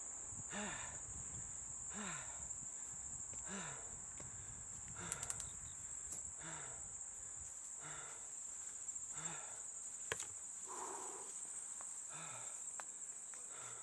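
Steady high chirring of crickets, with a person's heavy breathing over it: each exhale is voiced and falls in pitch, about every second and a half, the strained breathing of a mountain biker working up a steep climb. Two sharp clicks come about five and ten seconds in.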